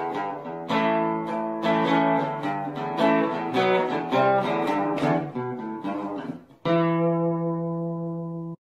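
Acoustic guitar music with a run of plucked notes. It ends on a single strummed chord, struck about two-thirds of the way through, which rings and then cuts off abruptly near the end.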